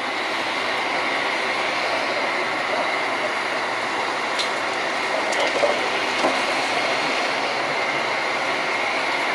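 Heavy machinery running steadily: a wood shredder working, with the excavator feeding it. A constant high whine runs through it, and a few knocks and cracks come about halfway through.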